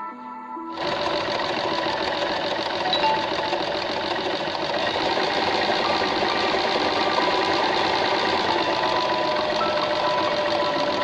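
Usha Janome Wonder Stitch Plus electric sewing machine starting up about a second in and running steadily as it stitches.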